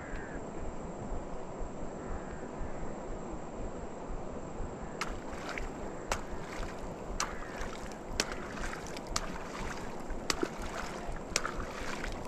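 Shallow river water sloshing and splashing as a man wades through weeds and works with his hands in the water. From about five seconds in, sharp clicks come roughly once a second over the water noise.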